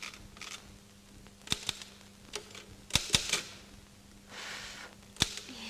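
Sharp, separate clicks, about seven of them unevenly spaced, some in quick pairs, over a low steady hum. A soft hiss rises and fades about four seconds in.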